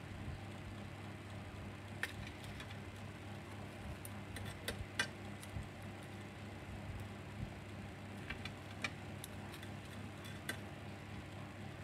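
Scattered light clicks and taps as multimeter test probes are pressed and shifted against the terminals of a small DC drill motor, over a steady low hum.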